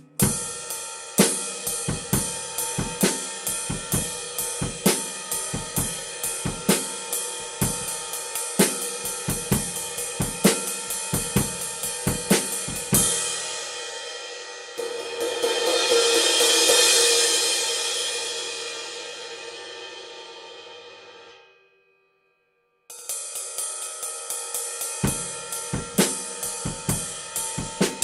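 Sabian AAX 21-inch X-Plosion ride cymbal played with a stick in a steady ride pattern, about four strokes a second, with bass drum strokes underneath. About halfway through, the cymbal is washed up into a swell that builds and then rings away to a brief silence. The ride pattern then starts again.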